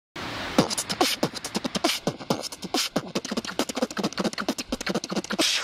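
Channel intro sting of fast, beatbox-like percussion: rapid clicks and short downward-sliding blips, ending in a brief hissing swell that cuts off suddenly.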